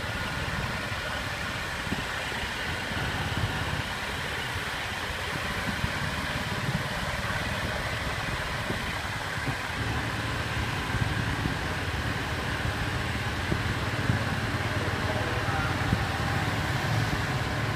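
Motor scooters running at a steady cruising speed through a road tunnel: a continuous low engine drone with road noise.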